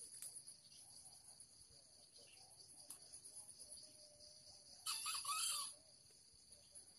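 Steady trilling of crickets and other insects; about five seconds in, a junglefowl rooster crows once, a short call of under a second.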